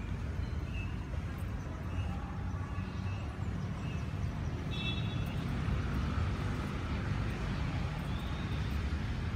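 Outdoor city ambience: a steady low rumble of street traffic, with a few short high chirps at intervals.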